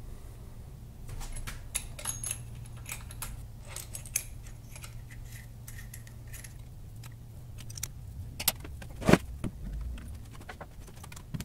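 Scattered light clicks and taps of hands fitting small rubber feet over cap-head screws in a wooden base and handling small metal parts, with a louder knock about nine seconds in, over a low steady hum.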